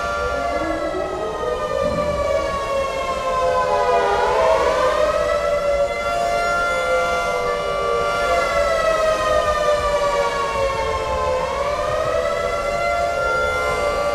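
Several CLM (Canadian Line Manufacturing) air raid sirens sounding together, layered from one real recording. Some tones hold steady while one pitch slowly slides down and back up twice, and a lower tone climbs in pitch over the first few seconds.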